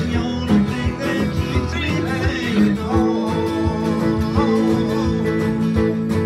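Several acoustic guitars playing a country tune together, strummed chords over a steady beat.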